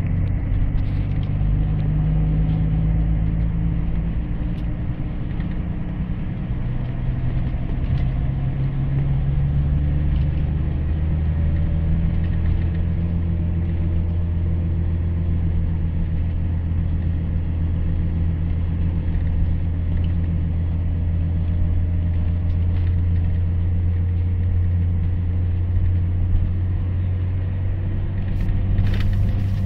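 Scania K124IB coach's rear-mounted straight-six diesel engine running under way, heard from inside the passenger cabin: a steady low drone whose pitch shifts a few times in the first ten seconds, then holds. A short clatter near the end.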